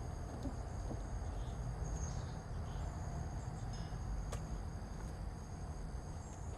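Insects trilling steadily outdoors in a continuous high-pitched chorus, over a low steady rumble.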